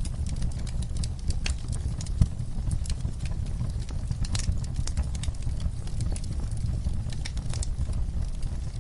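Wood fire crackling, with irregular sharp pops over a steady low rumble of burning. One louder pop comes about two seconds in.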